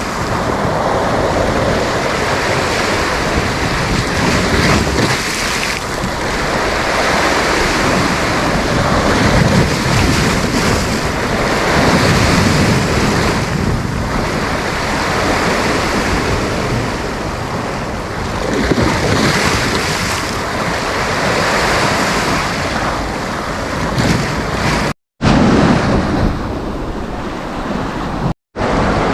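Sea waves breaking and washing up a beach, the surf swelling and easing every few seconds, with wind on the microphone. The sound cuts out completely twice, briefly, near the end.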